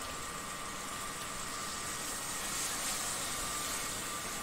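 Water poured from a jug into a hot wok of fried mutton curry, giving a steady hiss as it meets the meat and pan.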